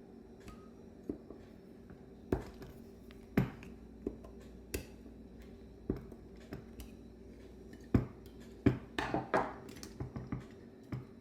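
Metal carburetor parts and hand tools clicking and clinking as a Bendix Stromberg WWC two-barrel carburetor is taken apart, in a scattered series of sharp taps. A brief rattle comes about nine seconds in.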